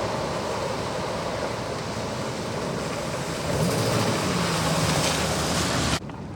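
Heavy surf rushing in with wind buffeting the microphone: a steady loud wash that swells about three and a half seconds in, then drops away abruptly near the end.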